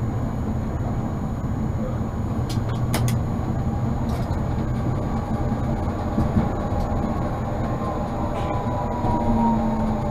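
Tatra T3P tram running along the track, a steady rumble with a quick cluster of sharp clicks about three seconds in. A faint whine falls slightly in pitch near the end.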